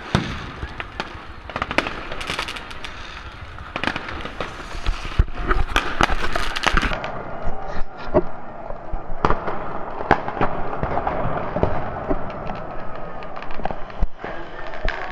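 Fireworks and firecrackers going off at random: a dense run of sharp bangs and cracks at irregular intervals, some close and loud.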